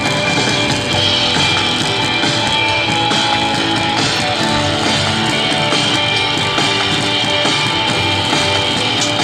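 Background music with guitar and drums, playing steadily.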